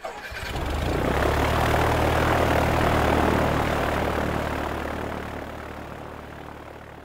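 Propeller-plane engine fly-by: a steady droning engine that swells up over the first couple of seconds, then slowly fades away as it passes.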